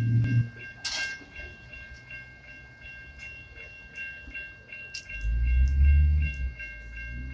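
Safetran Type 3 electronic crossing bells ringing with quick, even strikes while the crossing gates come down. A passing vehicle adds a low rumble at the start, and a louder one about five seconds in.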